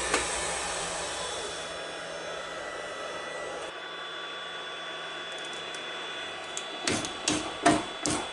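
Wood lathe running with a steady hum and hiss, then from about seven seconds in a series of sharp knocks and clunks as the turned piece is handled.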